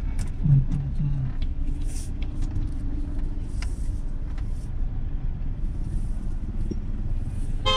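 Car driving through city traffic, heard from inside the cabin: a steady low rumble of engine and tyres.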